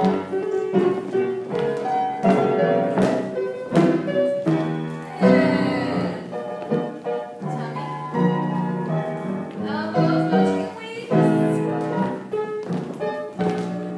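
Piano music, with struck notes and chords following one another.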